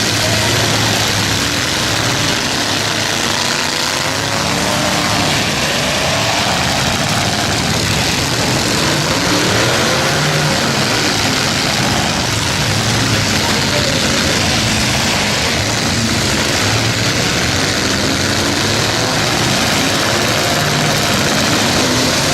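Several demolition-derby truck engines running and revving at once. Their pitches rise and fall over one another, under a constant dense noise.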